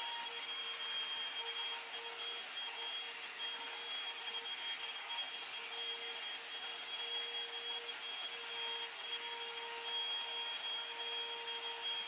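Revlon One-Step Hair Dryer and Volumizer hot air brush running steadily: a rush of blown air over a steady motor whine.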